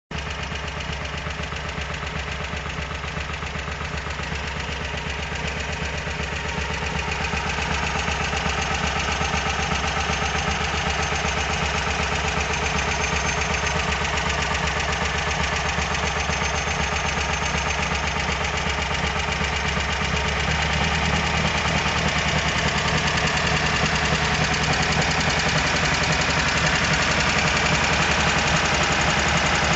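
Volkswagen Squareback's air-cooled flat-four engine running steadily with a knock in it, getting a little louder about a quarter of the way in and again about two-thirds of the way through.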